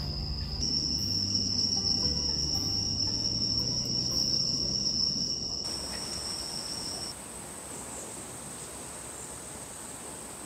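Crickets trilling in one steady, unbroken high note, which fades out about seven seconds in; a fainter, higher steady insect note carries on after it.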